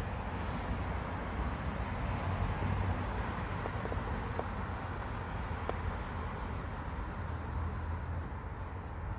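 Steady hum of distant road traffic, with a low rumble underneath and a few faint ticks in the middle.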